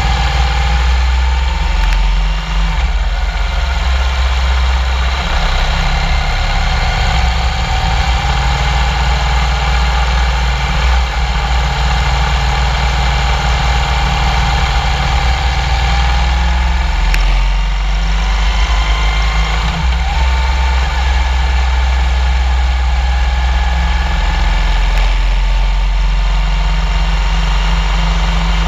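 Motorcycle engine running under way, heard from a camera on the moving bike, its pitch rising and falling gently with speed, over heavy wind rumble on the microphone.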